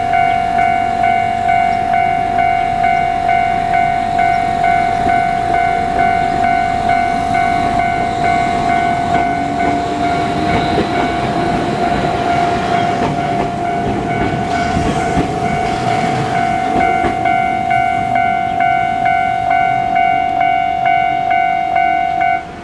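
Railway level-crossing warning bell ringing in a steady repeating ding. Partway through, a train passes over the crossing with rumbling and clattering wheels. The bell cuts off suddenly near the end.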